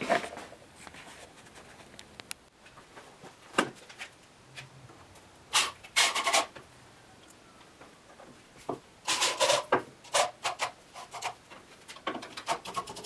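Power drill with a self-centering bit boring pilot holes through a steel miter bar's holes into plywood, in several short bursts of under a second each with knocks and clicks between them.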